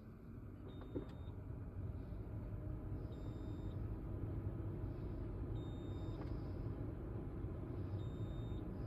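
Polestar 2 warning chime: a short, high beep repeating about every two and a half seconds, four times, over the low hum and road noise of the moving car, which grows louder over the first few seconds and then holds steady. A single click about a second in.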